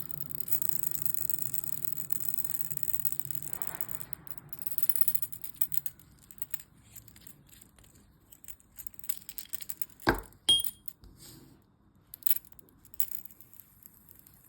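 Metal fidget toy being handled: a faint steady whir for the first few seconds, then scattered small clicks and two sharp metallic clinks about ten seconds in, the second ringing briefly, with a few lighter clicks after.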